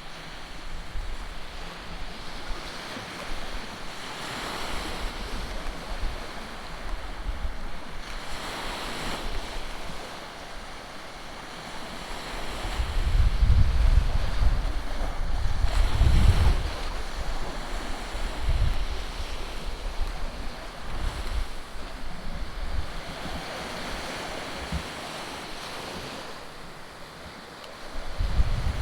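Sea waves washing onto a beach, the hiss swelling and fading every few seconds, with wind buffeting the microphone in low rumbling gusts, heaviest about halfway through.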